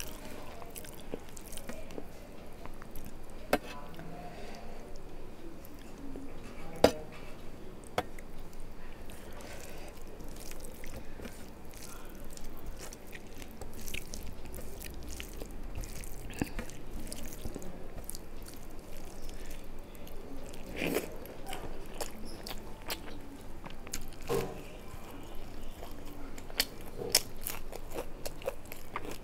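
Close-up eating sounds: fingers squishing rice and gravy together on a steel plate, with chewing and many small scattered clicks.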